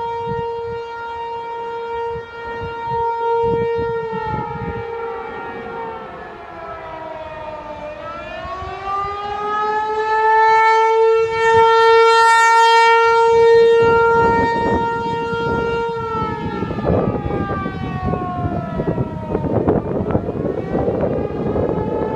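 ASC T-128 outdoor warning siren sounding the attack signal: a single tone that holds, slides down in pitch and climbs back up, twice, and is loudest in the middle. A rumbling noise builds underneath it in the last few seconds.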